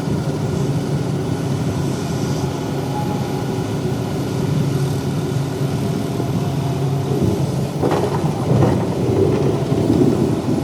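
Heavy diesel engine of an excavator running steadily under load, with a few sharp knocks about eight seconds in.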